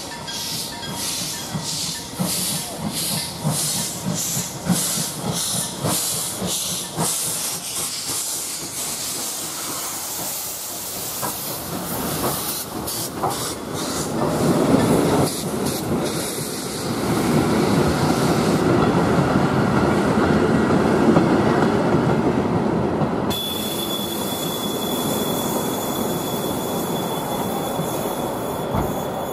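A steam train passing over a level crossing: regular beats about two a second at first, then the louder rolling rumble of the coaches going over the crossing. About two-thirds of the way through, a steady high-pitched squeal starts.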